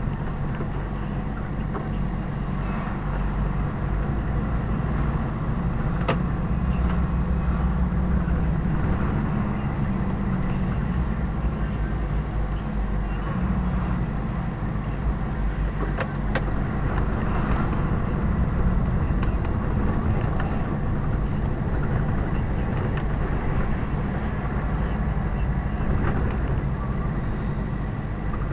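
Diesel engine of a 44-tonne semi-trailer truck running while driving, a steady low drone, with a few sharp clicks about six seconds in and again around sixteen to nineteen seconds in.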